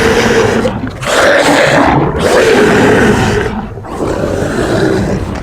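Dinosaur roar sound effects: several loud, long roars one after another, each lasting a second or more with short breaks between.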